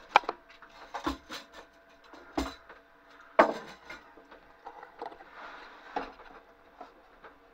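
A handful of sharp, irregular knocks and clunks, the loudest just after the start and about three and a half seconds in, over a faint steady hum.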